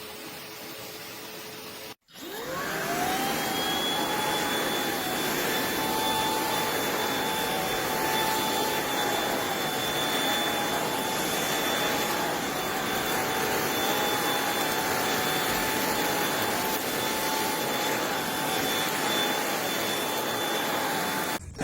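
Eureka RapidClean Pro NEC280TL cordless stick vacuum running at a lower, quieter speed. About two seconds in it cuts out, then its motor spins up with a rising whine to a louder, higher-pitched steady whine and rush of air, which cuts off near the end.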